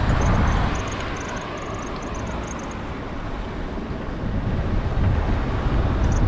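Motor traffic passing close to a moving bicycle. One vehicle's rush fades within the first second, and another builds up near the end, with wind on the microphone throughout.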